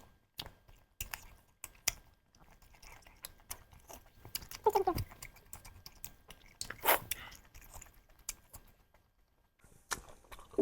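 A person chewing and biting into duck curry close to the microphone, with many sharp wet mouth clicks and a couple of louder bites.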